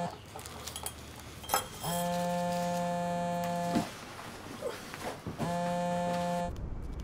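Electronic buzzing tone sounding in pulses, once for about two seconds and again more briefly near the end, with a few clicks and knocks in the gaps between.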